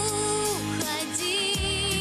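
Woman singing a slow pop ballad, holding long notes with vibrato, over band accompaniment with regular drum beats.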